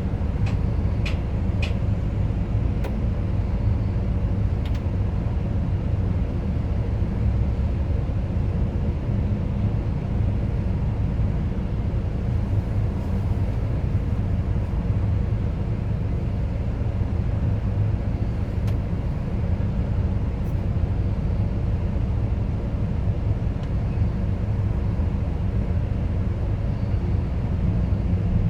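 Diesel engine of a Bobcat RTH 70.260 rotating telehandler running steadily, a constant low drone. A few light clicks come in the first couple of seconds, and single ones now and then after.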